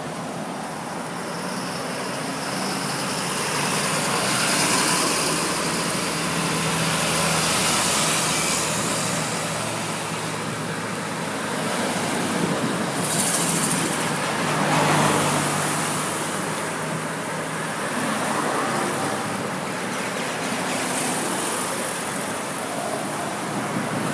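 A line of vehicles (pickups, cars and a truck) driving past one after another: engine hum and tyre noise swelling and fading as each one goes by.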